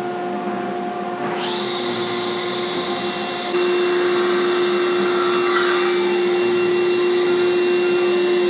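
Sliding table saw running steadily with a constant hum while small blocks of wood are pushed through the blade. A higher hiss joins about a second in, and the saw gets louder about three and a half seconds in as the cut goes on.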